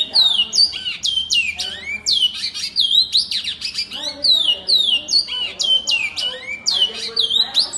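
Male great-billed seed finch (bicudo) singing a long, unbroken song of quick whistled notes, each sliding down in pitch. The song runs on without a pause, showing the stamina ('fibra') that bicudo breeders prize.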